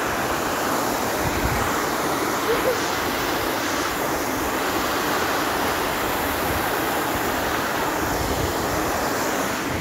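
Steady rushing of a small river cascading over rocks, with occasional wind buffeting the microphone.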